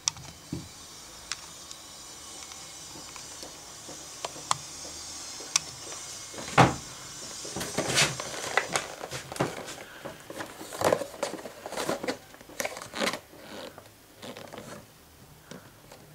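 Hands handling a toy in a clear plastic blister pack: scattered clicks and taps on the plastic, with a sharp knock about halfway. After that comes a busier run of crackling and crinkling as the package is turned over.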